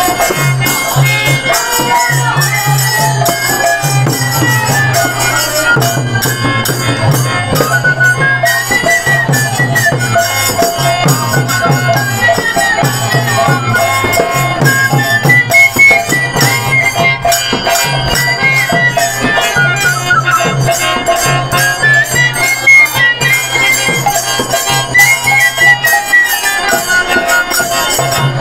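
Bengali kirtan music: a khol-type barrel drum keeping a steady low rhythm under dense jingling metal percussion, with a wavering melody line over them.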